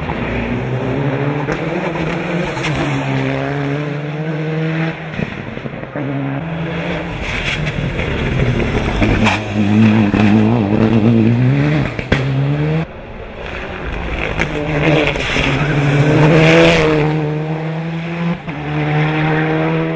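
Turbocharged 2.0-litre four-cylinder engine of a 650 hp Mitsubishi Eclipse GSX hill-climb car, revving hard under full acceleration. Its pitch rises steeply and then drops back at each gear change, several times over. It is loudest around ten seconds in and again near sixteen seconds.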